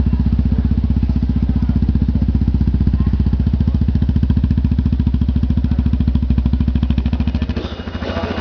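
Yamaha Teneré 250's single-cylinder four-stroke engine idling steadily with an even, rapid beat through a Coyote two-way aftermarket exhaust tip. About seven and a half seconds in, the sound dips briefly and changes.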